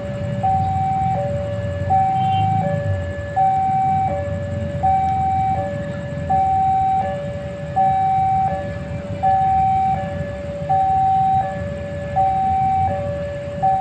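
Railway level-crossing warning alarm sounding an even high-low two-tone chime, one high-low pair about every one and a half seconds, over a low traffic rumble.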